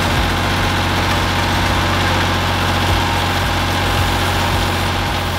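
Engine of a small Vermeer tracked machine running steadily while its backhoe attachment digs a hole.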